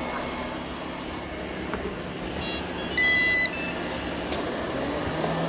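Many robot vacuums running at once, a steady whirring of motors and brushes. About three seconds in, one sounds a short electronic beep, preceded by a few faint quick tones.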